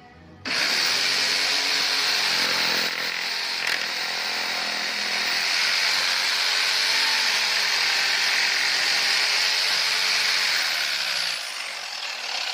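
Power saw cutting into wood: it bites in suddenly about half a second in, cuts steadily for about eleven seconds, then eases off near the end.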